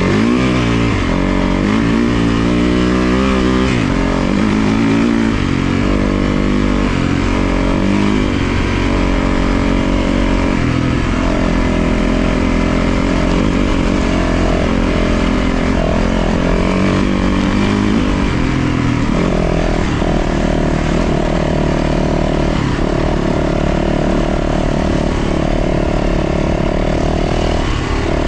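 450cc four-stroke single-cylinder dirt bike engine under way, the rider working the throttle so its pitch repeatedly climbs and drops, holding steadier near the end.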